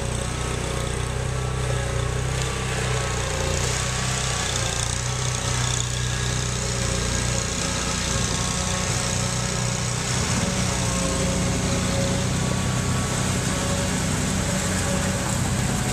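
Small engines of amphibious six- and eight-wheel all-terrain vehicles running steadily as they drive through muddy water, the engine note shifting about halfway through.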